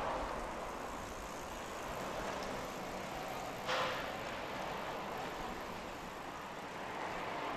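Steady street ambience of a residential neighbourhood: an even hum of distant traffic, with one short, louder hiss-like noise about halfway through.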